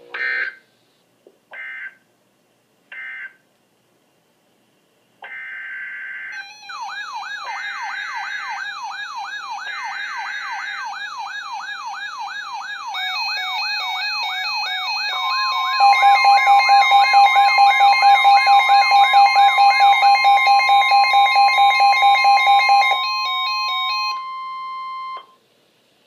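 Several NOAA weather radios going off at once. First come three short screeching digital data bursts marking the end of the previous message. About five seconds in, three more bursts carry the new alert's code, and the radios' own alarms start over them: a warbling siren-like sweep and rapid beeping, with the steady weather-radio warning tone joining about midway and cutting off near the end.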